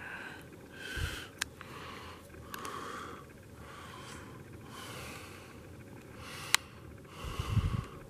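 A person breathing and sniffing close to the microphone, soft breaths every second or so, with two sharp clicks, about a second and a half in and near the end.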